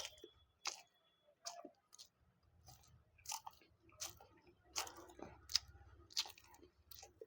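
Close-up chewing and biting of food, a string of short wet, crunchy mouth clicks coming about once a second.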